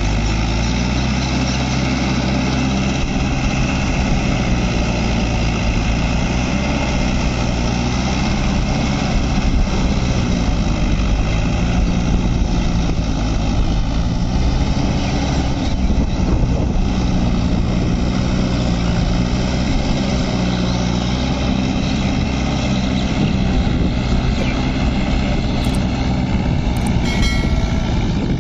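Mahindra Yuvo 575 tractor's four-cylinder diesel engine running steadily under load, pulling a rotary tiller through a wet paddy field. A short electronic chime sounds near the end.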